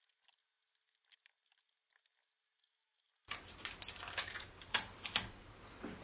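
Sharp clicks and light clinks of hands handling a screwdriver and small metal parts on a workbench. The first few seconds hold only faint ticks; the clicks come louder and more often near the end.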